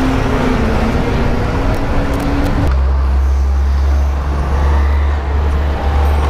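Road traffic heard from a bicycle riding in city traffic: a vehicle's engine drone at first, then, a little under three seconds in, a deep steady rumble takes over.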